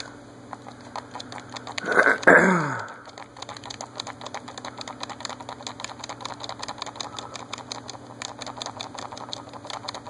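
Low steady hum of running ceiling fans in the room under a fast, even ticking, with one short vocal sound falling in pitch about two seconds in.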